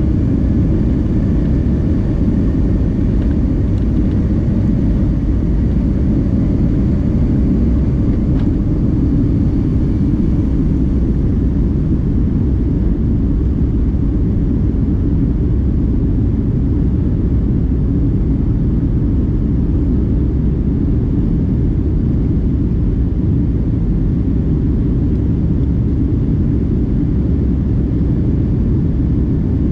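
Boeing 757-200 jet airliner: a steady, loud low rumble of engines and rushing air that holds even throughout.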